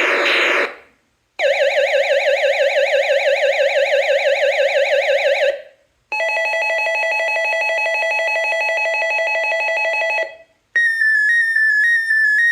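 1980s toy space laser gun's electronic sound effects playing one after another, each cut off by a short gap: a fast up-and-down warbling tone, then a steady buzzing tone, then a high chirp that falls in quick repeated steps.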